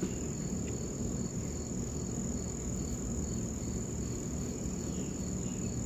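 Insects chirping: a steady high-pitched trill with a quieter chirp repeating at an even pace, over a low steady background rumble.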